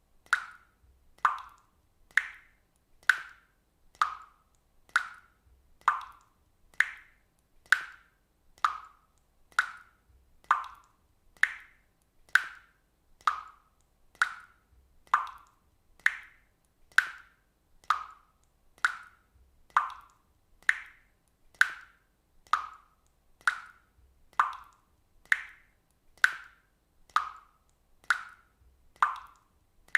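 Water drops falling into water one at a time, a steady regular drip of about one drop a second. Each drop is a short, clear plop, its pitch shifting slightly from drop to drop.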